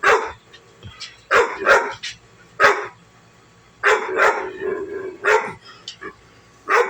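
Dog barking at a ceiling fan: single barks in the first few seconds, then a longer run of barks, and one more near the end.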